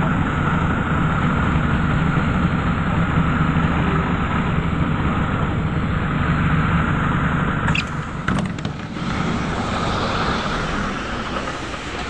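Ikarus city bus's diesel engine running steadily, heard from inside the passenger cabin as the bus moves. About eight seconds in there are a few sharp clicks, and the sound turns more open and hissy while the engine keeps running.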